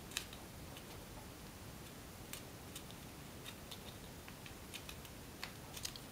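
Faint, scattered ticks and crinkles of a sheet of origami paper being pinched and creased between the fingers.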